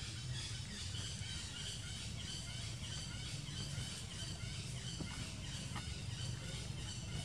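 Outdoor woodland ambience: many small bird chirps over a steady low rumble, with a couple of soft clicks about five seconds in.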